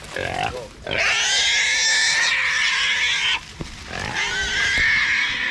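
A small caught wild hog (feral boar) squealing, in two long, loud, wavering screams, each two to three seconds long, with a short break between them: the distress squeal of a hog that has been caught.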